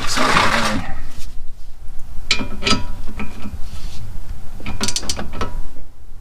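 Ratchet wrench clicking in two short runs as a bolt is tightened, after a brief rustle of handling.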